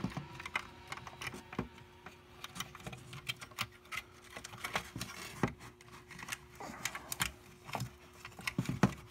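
Irregular small clicks and taps of hand-fitting little bolts and nuts into the plastic chassis of a toy RC dozer while mounting its drive motor, over a faint steady hum.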